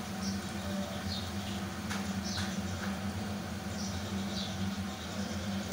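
Slotted spoon scraping around a karahi as fried onion-tomato masala is scooped out of the oil, giving short high squeaks that fall in pitch, over a steady sizzle and a low hum; one sharp knock about two seconds in.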